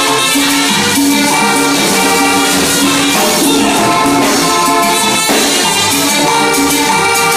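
Live vallenato band playing: button accordion and trumpets carrying the melody over electric bass and drum percussion.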